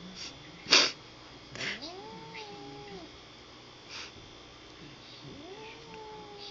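A cat yowling at another cat in two long, drawn-out calls, each rising, holding and then sliding down: an annoyed warning. A short, loud hiss-like burst comes about a second in, just before the first call.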